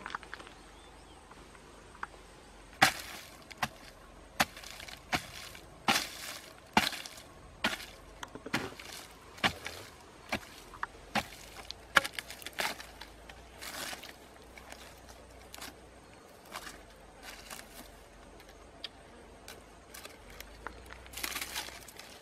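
A green bamboo pole jabbing and scraping into hard, dry soil: an irregular series of sharp knocks and crunches, roughly one a second, starting about three seconds in, with a longer scrape near the end.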